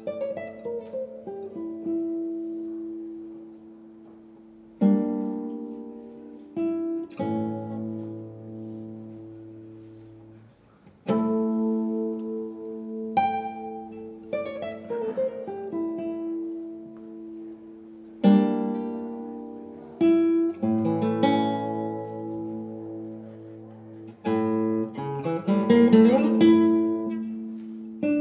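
Solo classical guitar played by hand: full chords struck and left to ring out, each dying away before the next, with a quick run of notes near the end.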